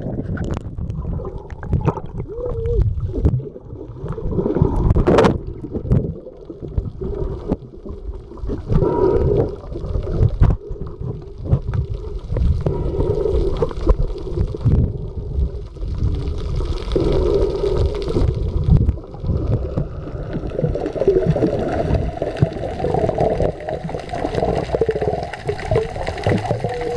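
Muffled underwater sound picked up by a camera just below the surface: water sloshing and gurgling against the camera, with a heavy uneven rumble and some wavering, muffled tones.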